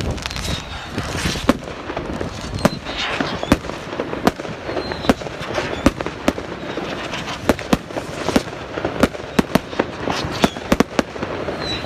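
Fireworks display: a fast, irregular run of sharp bangs and crackles from bursting shells, with a few short high whistles among them.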